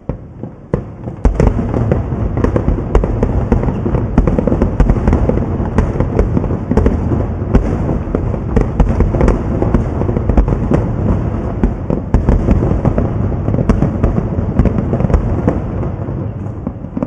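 Fireworks display at full barrage: many shells bursting in rapid succession, their reports overlapping into a continuous crackling rumble. It starts abruptly about a second in and thins out near the end.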